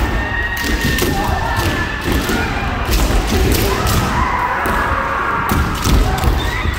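Many kendo fencers practising at once: feet stamping on the wooden floor and bamboo shinai clacking on armour in quick, overlapping strikes, under long shouted kiai.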